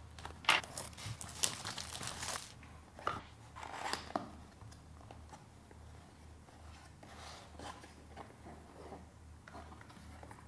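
A cardboard camera box being opened by hand: a seal tab peeled off and the lid and inner flaps pulled open, giving papery rustling, tearing and scraping. The noises come as a string of short rustles in the first few seconds, then quieter handling.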